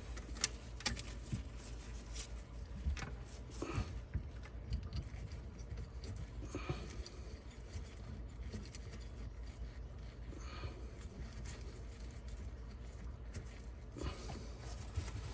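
Scattered light clicks, taps and scrapes of flexible faucet supply lines being handled and bent into place under a kitchen sink, most of them in the first few seconds, over a steady low hum.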